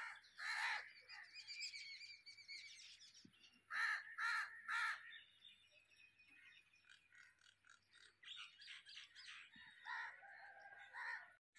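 A crow cawing outdoors: one harsh call just after the start, three in quick succession about four seconds in, and several more near the end, with smaller birds chirping in between.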